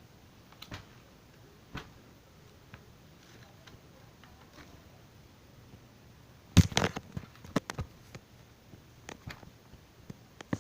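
A few faint ticks, then about six and a half seconds in a quick cluster of sharp clicks and knocks, with a few more scattered over the next couple of seconds.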